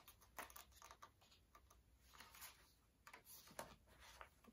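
Faint paper handling as the pages of a photobook are turned: scattered soft taps and light rustles of paper.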